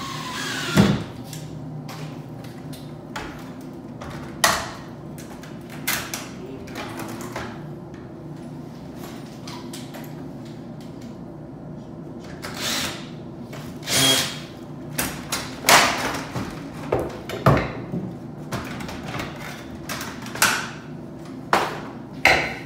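Installation work on a plastic wall dispenser: short runs of a cordless drill driving screws, among many sharp knocks and clatters of the plastic housing and cover being handled and fitted, over a steady low hum.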